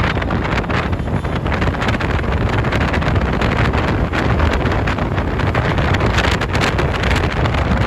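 City street traffic: a loud, steady din of engines and tyres with small irregular clatters, and wind buffeting the microphone.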